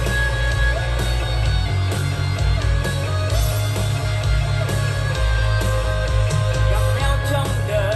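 Instrumental rock music with guitar over a heavy, pulsing bass, played back through a Marshall Woburn III Bluetooth speaker in a sound test.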